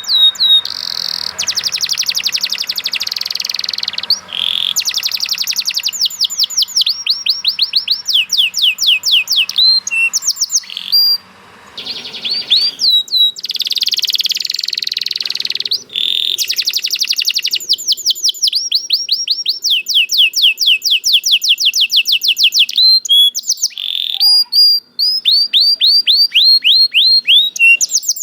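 Domestic canary singing a long song of fast trills: runs of quick, identical falling notes, each run lasting a second or two before switching to a different run, with two brief breaks in the song.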